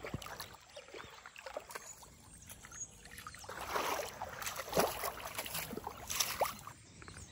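Footsteps wading through shallow river water, a run of irregular splashes and sloshes, the loudest in the second half.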